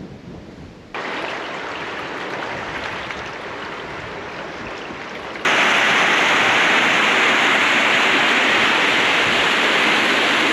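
Water rushing steadily at a river weir, an even hiss that comes in abruptly about a second in and jumps much louder about halfway through.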